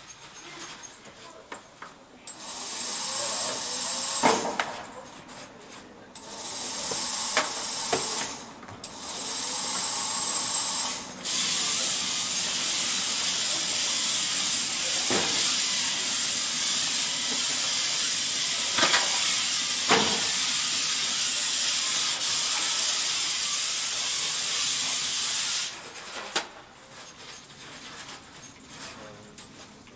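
FTC competition robot's electric motors whirring in short bursts as it drives, then running steadily for about fifteen seconds before stopping. A few sharp knocks come through, louder about a third and two thirds of the way in.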